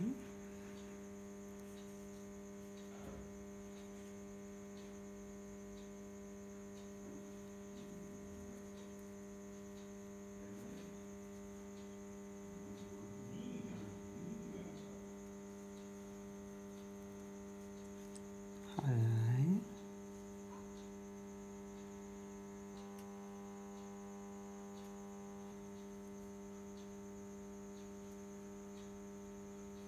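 Steady electrical mains hum with a stack of overtones. A short pitched vocal sound comes about two-thirds of the way through, with a few faint brief sounds around the middle.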